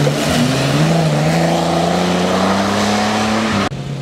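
Off-road competition 4x4's engine pulling under load. Its pitch dips briefly, then climbs steadily as it accelerates, and the sound cuts off abruptly near the end.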